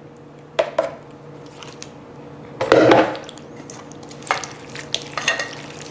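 White spatula scraping thick cashew cream sauce out of a blender jar and into a stainless steel bowl, with scattered taps and knocks; the loudest comes about three seconds in. A faint steady hum runs underneath.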